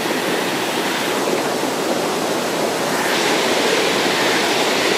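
Rapids in a rocky mountain stream: water rushing over and between boulders, a loud, steady rush that turns brighter and hissier about three seconds in.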